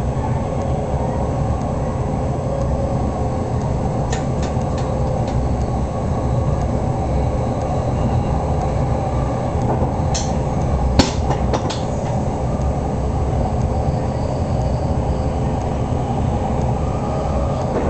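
Train running steadily along the track, heard from inside the driver's cab: a continuous low rumble with a faint steady hum, and a few sharp clicks from the wheels about four seconds in and again around ten to twelve seconds in.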